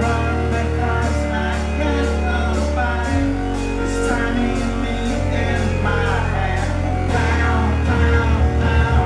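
Live band music: a woman singing over guitar and a sustained bass line that changes note about every two seconds, with a beat ticking about twice a second.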